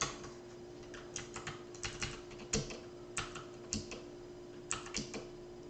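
Faint, irregular clicking at a computer, about a dozen clicks, as a setting is picked from a software menu. A faint steady hum sits under the clicks.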